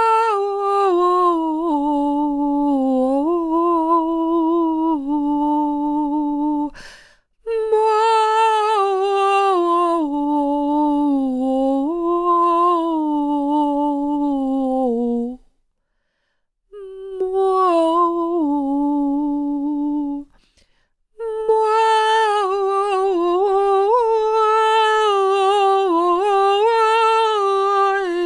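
A woman's unaccompanied voice singing a slow, wordless melody on open syllables like "ma, mo, mi", close to humming. The notes are long and held with a gentle waver, sung in four phrases with short pauses between them.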